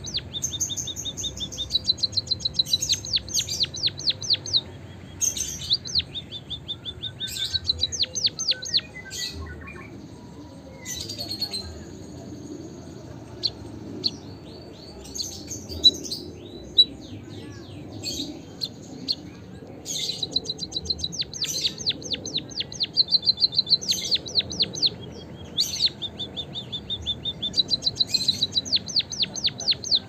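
White-headed munia singing: repeated runs of rapid, high, thin notes, each run a second or two long with short pauses between. The song is the long canary-like rolling trill kept for training other munias to sing.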